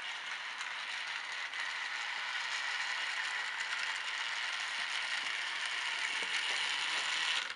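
Motorised Chuggington Chuzzle toy train running around its plastic track, its small motor and gears making a steady whirring clatter.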